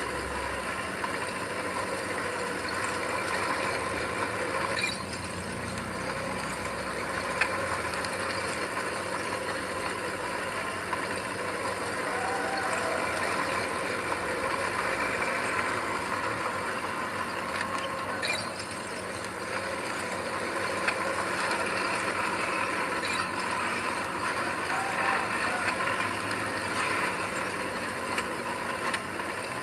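Heavy earthmoving machinery running steadily, with mechanical clanking and rattling and a few sharp clicks.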